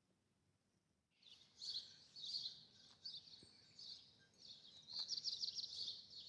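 Songbirds singing in the open air: after about a second of near silence, a run of high chirps and short phrases sets in, with a quick trill near the end.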